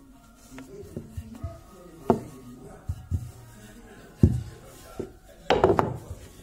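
Wooden rolling pin rolling out piadina dough on a floured board: irregular knocks and thumps as the pin is pressed and pushed, the loudest cluster about five and a half seconds in. Faint background music underneath.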